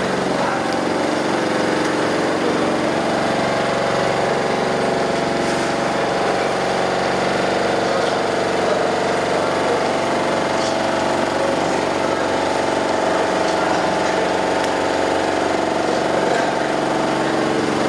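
A motor or engine running steadily with an even, unchanging hum, with a few faint ticks over it.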